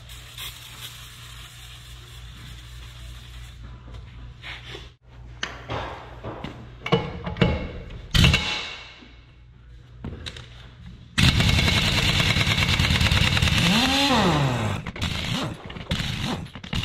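Tools clanking and knocking on metal, with one sharp ringing knock, then about eleven seconds in a loud, fast, steady rattle of an air impact wrench starts and keeps going, working a wheel nut on the dump truck's worn steer tire.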